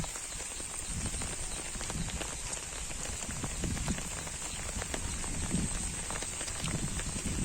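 Steady rain on an umbrella, with many individual drops ticking on it and soft low thumps about once a second, like walking footsteps.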